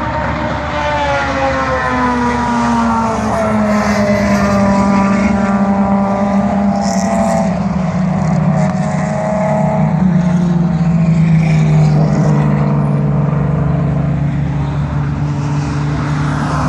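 Historic racing cars' engines at high revs passing by on track, several in succession, each engine note falling in pitch as the car goes past.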